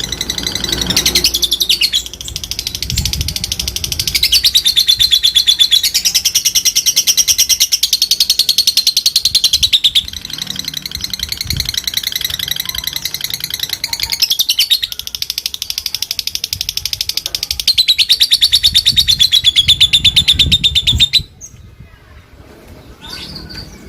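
Fighter lovebird giving a long, unbroken 'ngekek' chatter: a high-pitched, very rapid run of notes that shifts up and down in pitch and cuts off suddenly near the end. This is the long chatter of a lovebird kept as a fighter, used to provoke other lovebirds into calling.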